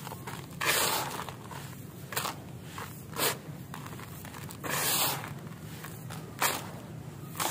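Handfuls of dry, crumbled concrete grit crunching and pouring back into a bucket through the fingers. There are about five separate gritty, hissing pours a second or so apart.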